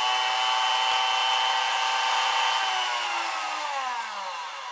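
A late-1960s General Electric D4M47 hand mixer's motor running at its top "whip" speed with a steady whine, the beater spinning unloaded in the air. About three seconds in it winds down, the whine falling in pitch as it slows.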